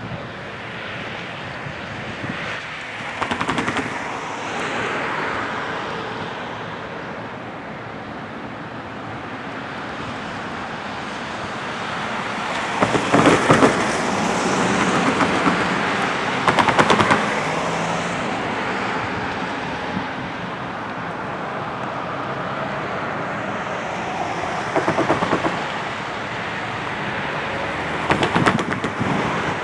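Freight grain train rolling past: a steady rumble of wheels on rail, broken every few seconds by bursts of rapid clacking as wheelsets cross rail joints.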